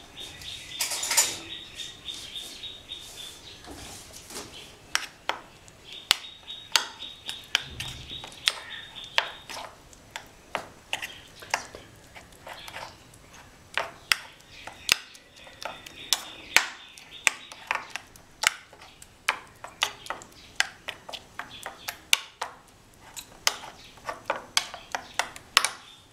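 Metal spoon stirring a spice paste in a small stainless-steel bowl: a quick, irregular run of light clinks and scrapes against the bowl. A thin, steady high tone sounds behind it in stretches.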